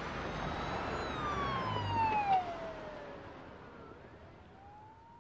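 Siren sound effect at the close of a hip-hop/R&B track: one wail slowly falling in pitch, then beginning to rise again as it fades out.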